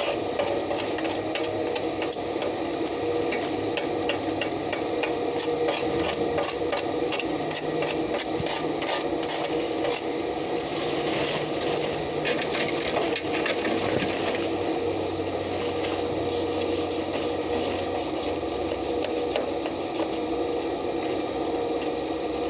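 Stick arc welding: the electrode arc crackling and sizzling steadily, with a steady hum underneath.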